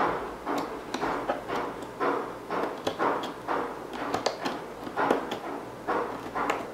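Scissors snipping through the seals on a cardboard box, with the cardboard rustling as the box is turned in the hand; a string of irregular sharp snips and clicks, a few a second.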